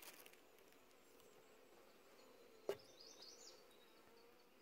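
Faint steady buzzing of honeybees at an open hive, with a single sharp click about two and a half seconds in and a few faint high chirps just after it.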